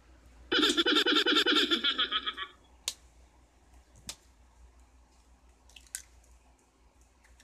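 A burst of quick giggling laughter lasting about two seconds, followed by two sharp taps as an egg is knocked against the rim of a stainless steel bowl to crack it.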